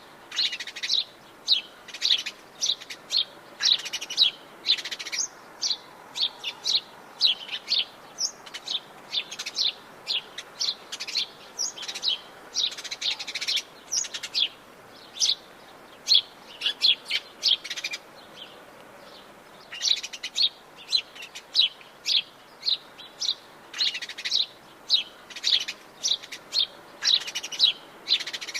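Songbirds chirping: many short, high chirps in quick succession, with a brief lull about two-thirds of the way through.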